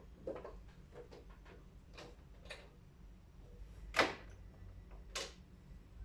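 Light plastic clicks and knocks from handling the air filter and grille of a wall-mounted air-conditioner indoor unit, with two sharper clicks about four and five seconds in.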